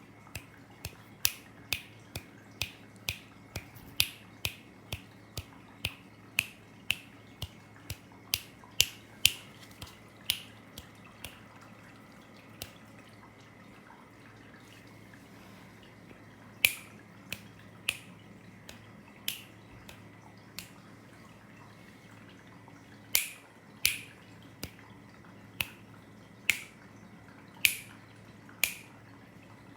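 A person making sharp clicking sounds to catch a cat's attention. The clicks come about twice a second at first, stop for a few seconds, then return more sparsely.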